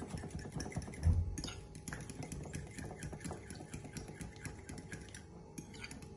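Fork beating eggs in a bowl: rapid clicking of the tines against the bowl, with one low thump about a second in.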